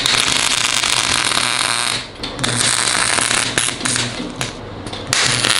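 MIG welder arc crackling and spitting as a bolt is butt-welded onto a seized pipe plug in an engine block. It runs in bursts, stopping briefly about two seconds in and again for over a second near the end before starting up once more.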